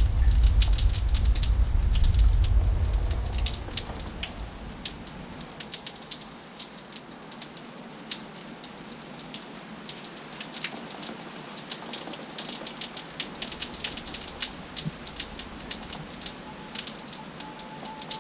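Storm rain falling, with many separate drops ticking. Strong wind buffets the microphone as a loud low rumble for the first few seconds, then dies down, leaving the rain alone.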